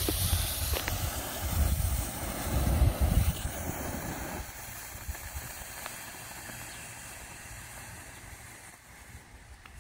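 Smoke bomb firework hissing as it pours out smoke, loud for the first few seconds with a low rumble under it, then dying away steadily.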